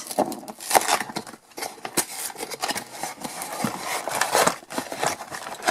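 Cardboard toy box and its plastic packaging being handled and opened by hand: a busy run of rustling, scraping and clicking.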